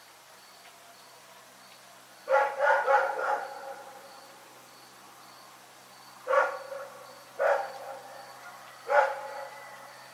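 A dog barking in a quick run of about three barks, then three single barks spaced roughly a second apart.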